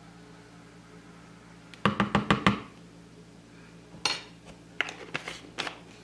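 A metal teaspoon tapping and clinking against a plastic container and spice jar as ground cinnamon is spooned in: a quick run of about five taps about two seconds in, then a few separate knocks in the second half. A faint steady hum lies underneath.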